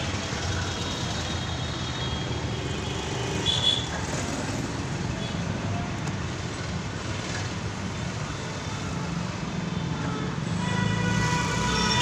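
Steady street traffic noise, with vehicle engines running. There is a short, high-pitched sound about three and a half seconds in, and a louder pitched vehicle sound builds near the end.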